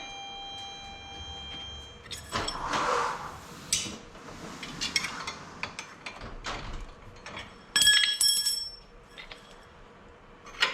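Metal parts clinking, knocking and scraping as a steel UTV trailing arm and its bolts are worked into place. A struck piece rings for about two seconds at the start, and there is another bright run of ringing clinks about eight seconds in.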